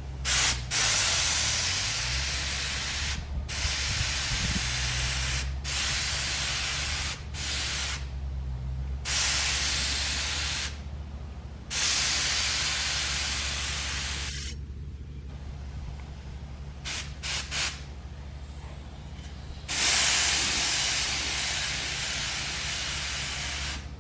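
Compressed-air paint spray gun, fed at about 60 psi through a regulator, spraying paint in repeated trigger pulls: about ten bursts of hiss from under a second to about four seconds long, with short pauses between them. A steady low hum runs underneath.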